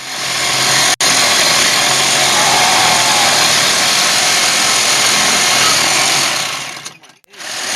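Reciprocating saw running hard, its blade cutting through a steel wheel stud. The saw stops about seven seconds in.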